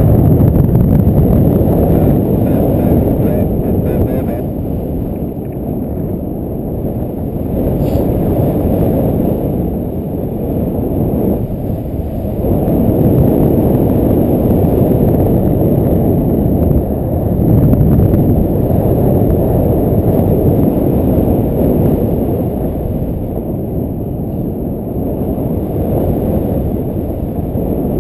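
Wind rushing over the camera's microphone in flight under a paraglider: a loud, low buffeting rush that swells and eases every few seconds.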